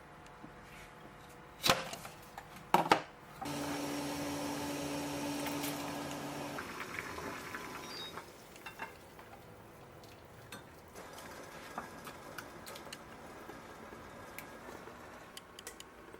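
Kitchen sounds: a few sharp clinks and knocks of dishes or utensils, then a small appliance motor humming steadily for about three seconds before it cuts off, followed by quiet handling noises.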